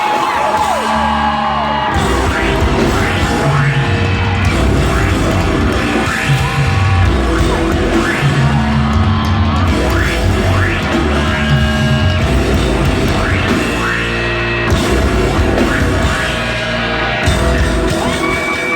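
Live rock band playing loud, heavy, guitar-driven music with drums and bass, with a few yelled vocals.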